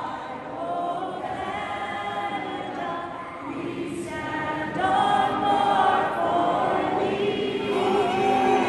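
A national anthem sung by many voices at once, a vocal group with the arena crowd singing along. It grows louder about five seconds in.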